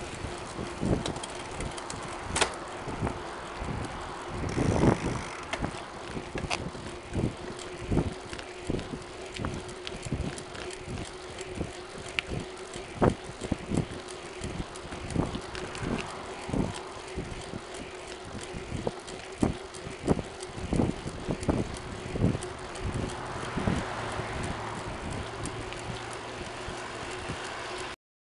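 Wheels rolling along an asphalt road: a steady hum with frequent irregular knocks and rattles from bumps in the surface, cutting off suddenly near the end.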